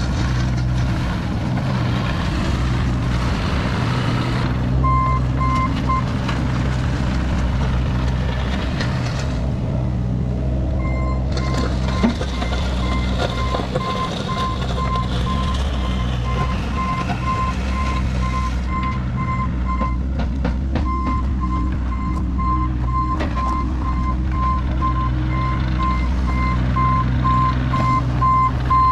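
Cat 303E mini excavator's diesel engine running steadily while the machine tracks over gravel. Its travel alarm beeps in an even pulse briefly about five seconds in, then again from about eleven seconds on. There are a few sharp clicks from the gravel and the tracks.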